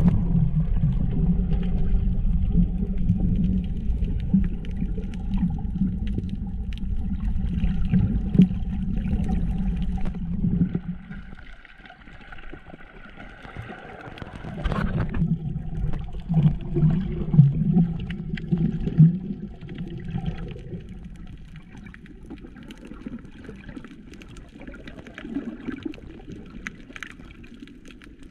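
Underwater sound picked up by a submerged camera: a steady low rumble with faint humming tones for about the first ten seconds, then quieter muffled water gurgling with a few swells.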